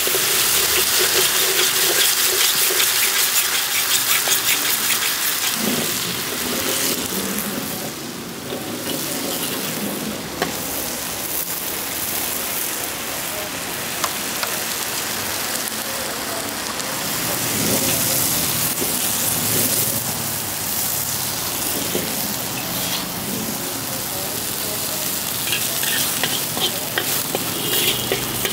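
Pad Thai noodles frying in a hot pan at a street stall, a steady loud sizzle with a few sharp clicks. The sizzle is strongest in the first few seconds, eases around eight seconds in, and swells again later on.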